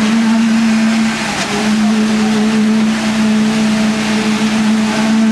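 An engine running steadily, giving a loud, even drone with a constant hum and broad rushing noise over it.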